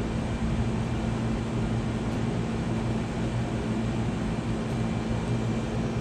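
Steady machine noise with a low hum, running at an even level without change.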